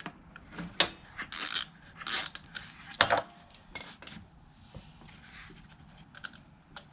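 Metal-on-metal clinks and scrapes of a socket wrench working the small 8mm nuts off the carburetor mounting studs, busiest in the first four seconds and then sparser and fainter.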